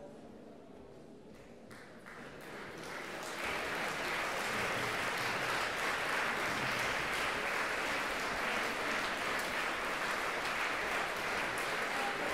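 Audience applauding, starting sparse and building over the first three or four seconds into steady, full applause.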